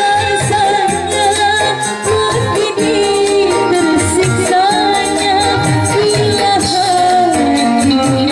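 Live band music: a woman singing through a microphone over electric guitar, electronic keyboard and kendang hand drum.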